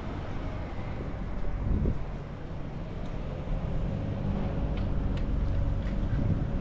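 Low, steady rumble of street traffic, swelling briefly about two seconds in, mixed with wind buffeting the microphone.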